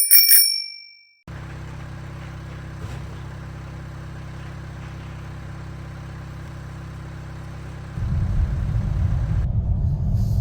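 Car driving: a steady low rumble of engine and road noise that gets louder about eight seconds in, after a ringing chime fades out in the first second.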